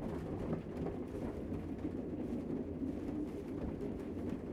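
Doves cooing over a steady low background noise.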